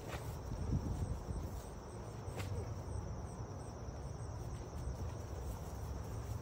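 Crickets chirring steadily over a low rumble, with two faint knocks, one at the start and another about two and a half seconds in.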